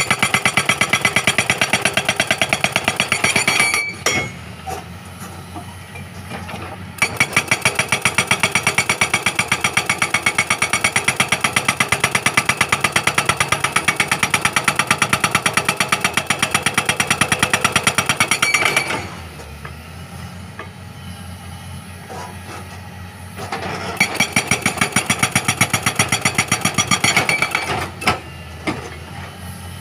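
Hydraulic rock breaker on a Caterpillar excavator hammering rock in rapid, evenly spaced blows. It comes in three long bursts and a short one near the end, with pauses of a few seconds between them in which only the excavator's diesel engine is heard running.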